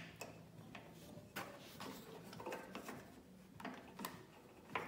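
Light, scattered clicks and taps of small metal parts being handled and fitted back onto a Honda push mower engine, with a faint steady low hum underneath.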